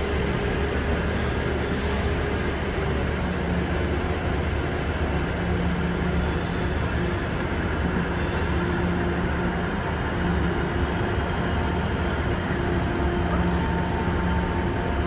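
A diesel multiple unit's engines idling in the station, making a steady low rumble with a constant hum.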